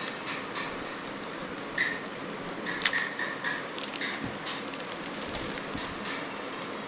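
Handling noise from a plastic portable hard drive being turned over in the hands: scattered light clicks and taps over a faint rustle, with one sharper click about three seconds in.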